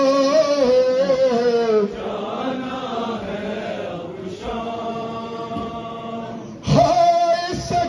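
Male voices chanting a nowha, a Shia mourning lament, in long drawn-out sung lines. The chant softens in the middle and a louder line starts near the end.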